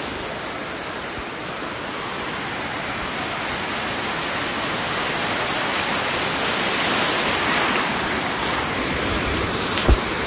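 Ocean surf washing in as a steady rushing noise that swells a little midway, with a single dull thump on the microphone near the end.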